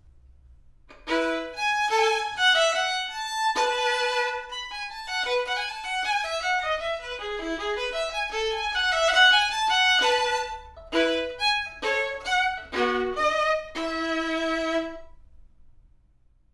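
Background music: a violin playing a melody of separate notes that starts about a second in and stops near the end, over a faint low hum.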